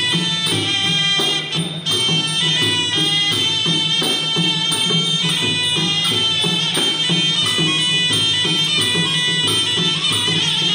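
Traditional Khmer boxing ring music: a sralai reed oboe playing a continuous, ornamented melody over a steady drum rhythm, with a brief dip about a second and a half in.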